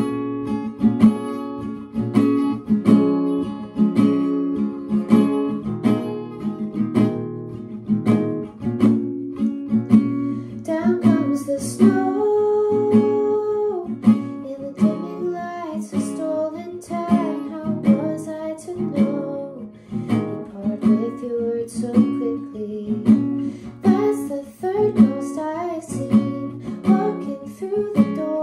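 Acoustic guitar strummed in a steady chord pattern; about ten seconds in, a woman begins singing over it.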